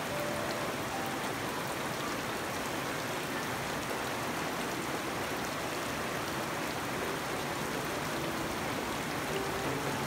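Steady rain falling on garden foliage and wet ground: an even, unbroken hiss.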